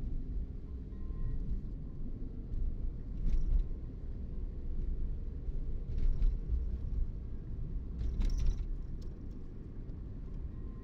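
A car's steady low road and engine rumble, heard inside the cabin while driving on a wet road, with three short swishes a couple of seconds apart.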